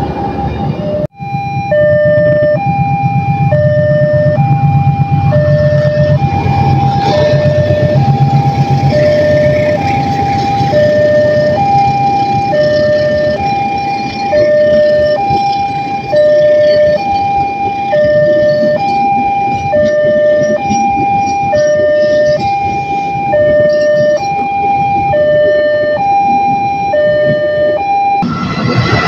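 Railway level-crossing alarm sounding its two-tone ding-dong, alternating a higher and a lower note in a steady cycle, over the low rumble of a passing train. The sound drops out for an instant about a second in.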